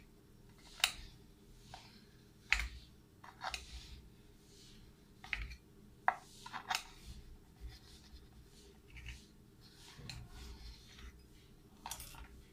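Knife blade cutting through a soft rubber boot on a board: a string of irregular sharp cuts and short scrapes, about a dozen, with uneven gaps between them.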